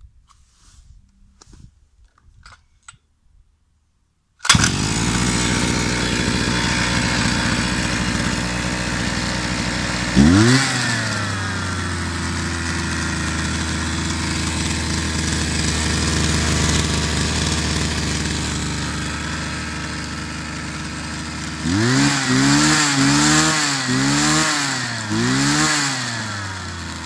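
AMA Garden AG1 450 brush cutter's 43 cc two-stroke engine coming in suddenly about four seconds in and idling, with one brief rev about ten seconds in. Near the end come four quick throttle blips, each rising and falling, before it settles back to idle. Before the engine, only faint handling clicks.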